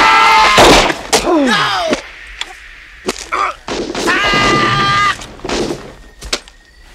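Men yelling and screaming in a hand-to-hand fight, one cry falling away into a groan about a second and a half in and another long scream about four seconds in. Sharp gunshots and thuds break in between, and it grows quieter near the end.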